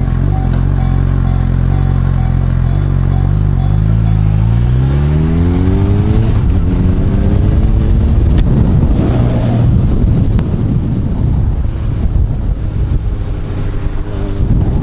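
Honda CB1000R's inline-four engine running steadily at low revs, then climbing in pitch as it accelerates from about four and a half seconds in. The pitch drops and climbs again about six seconds in. From about eight seconds in, wind noise on the microphone covers most of the engine.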